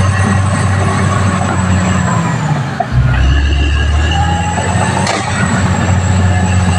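Caterpillar D6R XL bulldozer running under load: a steady diesel drone with high-pitched whines over it. About three seconds in, the engine's low note drops deeper and grows stronger.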